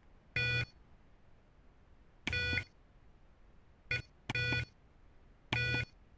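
The Arduino clock's alarm buzzer sounding four short electronic beeps at uneven gaps, each about a third of a second long, with a very brief blip just before the third.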